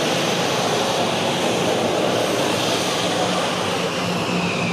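F-15E Strike Eagle's twin jet engines running at taxi power as it rolls past: a steady rushing roar with a high whine that drops slightly in pitch near the end.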